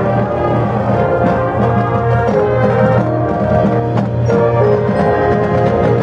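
Marching band playing: brass sustaining full chords over drum and percussion strokes.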